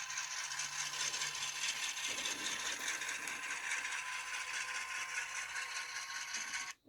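Tiny onboard speaker of a sound-equipped N scale GE C39-8 model locomotive playing its diesel engine sound as a dense, rattling hiss. The sound cuts off suddenly near the end as the model loses contact, which the owner puts down to dirty track.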